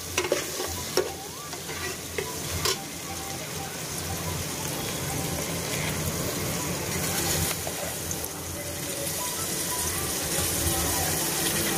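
Vegetables frying in oil in an aluminium pressure cooker, a steady sizzle, with a metal spoon stirring and knocking against the pot a few times as raw rice is spooned in.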